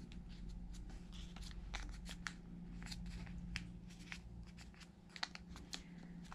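Origami paper rustling and crinkling faintly as fingers fold and crease its corners back, in small irregular clicks.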